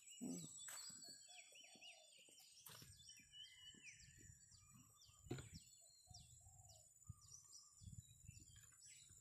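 Faint birdsong: several birds chirping with many short, quick notes, over a steady high faint tone. A few soft knocks sound, the loudest about five seconds in.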